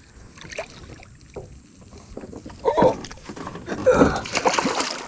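Small knocks and clatter of gear in a jon boat, then about four seconds in a short loud burst of splashing as a hooked bass is brought to the landing net beside the boat.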